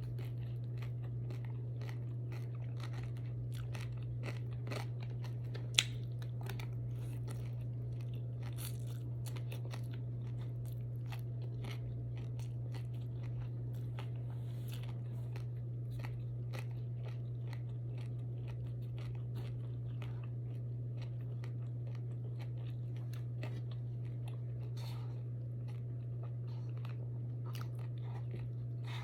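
A person chewing and crunching food close to the microphone, with many small mouth clicks and one sharper click about six seconds in. A steady low hum runs underneath.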